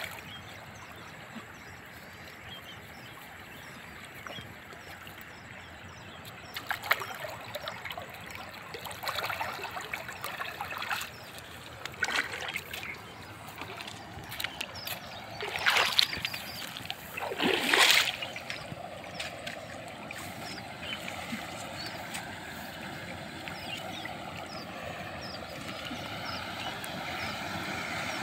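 Shallow muddy water splashing and sloshing in several separate bursts as someone wades through it, the two loudest near the middle. Afterwards a steady motor hum with a slowly wavering pitch rises in the background.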